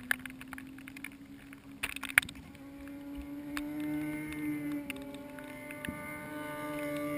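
Faint motorcycle engine drone, its pitch wavering slowly up and down, with a couple of sharp knocks about two seconds in.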